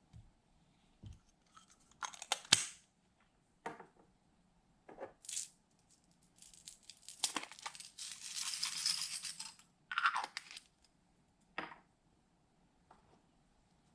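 Hands working slime with glitter mixed in: scattered sticky clicks and pops, with a longer crackling, squishing stretch in the middle.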